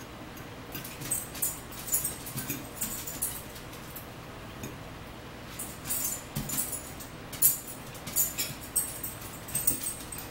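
Metal forks tapping and scraping on plates while two people eat, with chewing mouth sounds: irregular small clicks, in two busy stretches, about a second in and again from about six seconds on.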